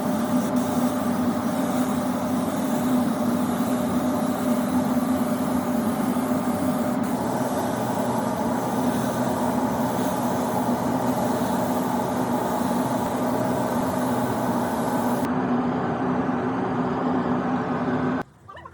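A steady mechanical running noise with a low hum, cutting off abruptly near the end.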